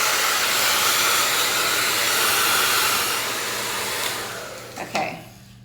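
Handheld 1800-watt ionic hair dryer blowing steadily, then switched off about three seconds in, its fan winding down. A short knock comes near the end.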